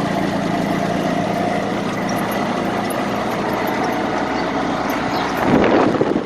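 An engine idling steadily with a low hum, then a louder rush of noise about five and a half seconds in.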